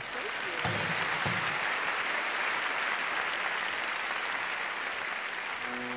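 Audience applauding steadily. The band's first notes come in right at the end.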